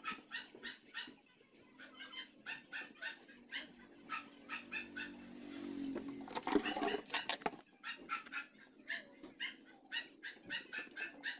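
An animal's short high calls repeating rapidly, about three to four a second, with a short break near the middle. About six and a half seconds in, a louder burst of scraping and clicking lasts about a second.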